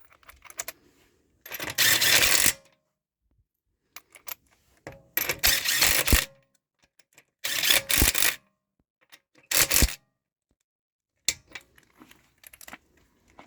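A wrench snugging up wheel lug bolts: four bursts of rapid mechanical clicking, each about a second long, with scattered metal clicks between them.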